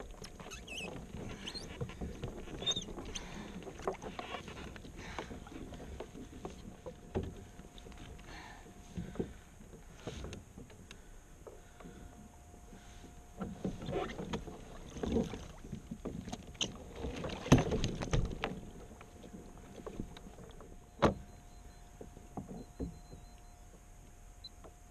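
Water sloshing and splashing against a kayak hull, with irregular knocks and thumps as a tuna is handled on board; the sharpest knocks come about 17 and 21 seconds in.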